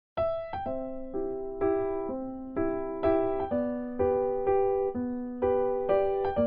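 Background music: a gentle electric piano melody with notes struck about twice a second, each fading before the next. It begins right after a momentary gap.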